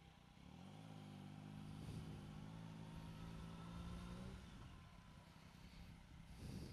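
Motorcycle engine running at low revs as the bike rolls slowly, a faint steady low hum that rises slightly about half a second in and drops away after about four seconds, over low wind rumble.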